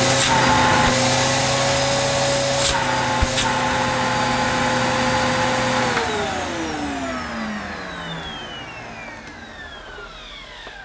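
Electrolux Cyclonic Lite bagless upright vacuum cleaner running, with a steady motor whine and rushing air, while its suction is tested by hand at the hose; there are a couple of knocks about three seconds in. About six seconds in it is switched off, and the whine falls in pitch and fades as the motor spins down.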